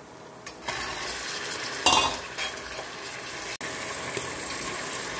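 Green peas tipped into hot oil and fried onions in an aluminium pressure cooker, starting to sizzle about half a second in, then stirred with a metal slotted spoon scraping the pot. There is a short clatter about two seconds in.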